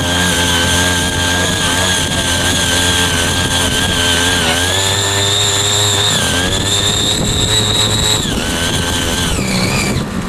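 Small engine of a mini power tiller running hard, with a high steady whine over the engine note. Near the end the whine slides down in pitch and dies away.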